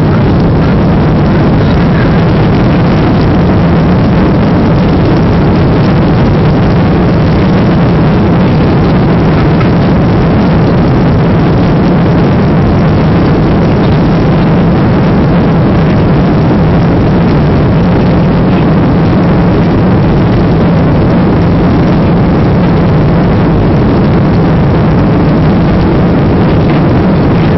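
Boeing 737-800's CFM56 jet engines at takeoff power during the takeoff roll, heard from inside the cabin: a loud, steady rushing roar with a low hum and rumble underneath.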